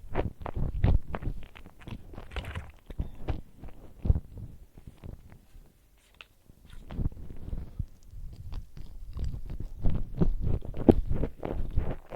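Close-miked chewing and biting of food, with crisp crunches, a short lull about halfway through, then chewing again.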